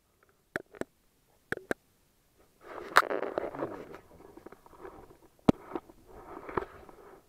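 Handling noise from the camera: a few sharp clicks and knocks, then cloth rubbing and rustling against the microphone.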